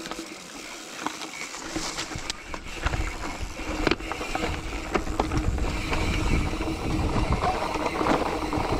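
Bicycle being ridden over rough ground: scattered clicks and rattles over a noisy haze, with a low rumble that grows louder about three seconds in.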